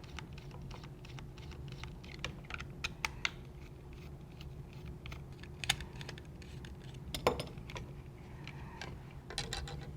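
Scattered small clicks and taps of a screwdriver turning out the screws of a plastic toy remote control and handling its case, over a low steady hum.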